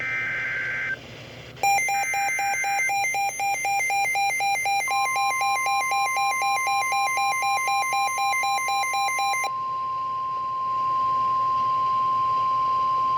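Emergency Alert System warning signals on NOAA Weather Radio announcing a special marine warning. Two short screechy SAME data bursts open it, and a receiver's alarm then beeps rapidly from under two seconds in. About five seconds in, the steady 1050 Hz weather-radio warning tone starts and holds after the beeping stops.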